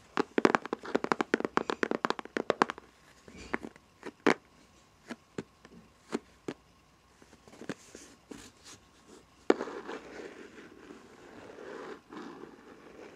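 Fingernails tapping a hard surface: a fast run of sharp taps for about three seconds, then single taps every half second or so. About 9.5 s in there is one sharp click, then a steady scratching rustle.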